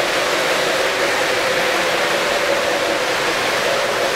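O-gauge model trains running past on the layout track: a steady rolling rumble of wheels and motors with a hum under it.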